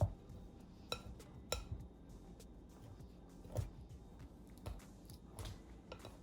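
A mixing utensil knocking and scraping against a bowl while stirring mashed potato, with irregular clinks every second or two.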